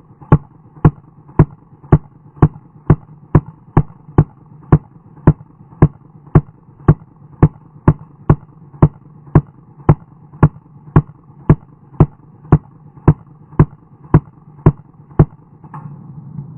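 9mm Uzi submachine gun firing a long full-auto string, played slowed down so the shots come evenly at about two a second, with a steady low hum between them. The string stops about a second before the end.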